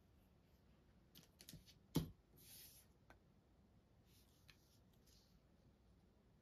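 Faint handling noises of craft supplies on a tabletop: a few light clicks, then one sharp knock about two seconds in, followed by soft rustling.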